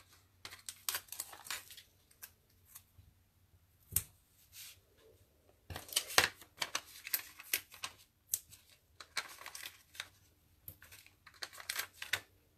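Paper crafting by hand: cardstock rustling, sliding and being pressed on a tabletop as small foam adhesive squares are stuck onto a card panel, with irregular light scrapes and taps and a sharp click about four seconds in.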